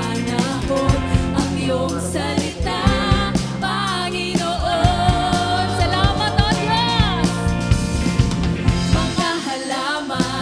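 Background music: a song with a singing voice wavering in pitch over a steady beat.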